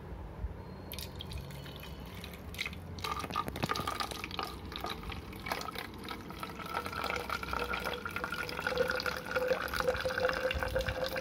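Water pouring into a plastic bottle. It splashes unevenly at first, then settles into a steady fill with a note that rises slowly in pitch as the bottle fills.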